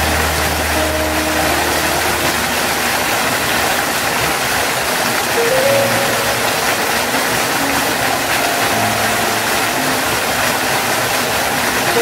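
Steady rush of a waterfall plunging into its pool, with soft background music of slow, held notes changing pitch every few seconds.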